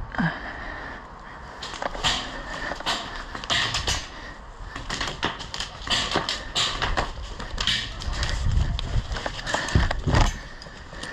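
Footsteps and rattling gear of a person moving on foot: irregular sharp clicks and knocks, with heavier low footfalls in the last few seconds.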